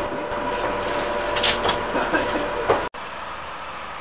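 Background murmur of people's voices with a few sharp clicks and knocks and a steady electrical hum. About three seconds in it cuts abruptly to a quieter, even hum of a train at rest.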